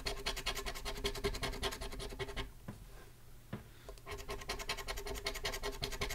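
A coin scratching the coating off a paper scratch-off lottery ticket in fast, repeated strokes, stopping for about a second and a half halfway through before carrying on.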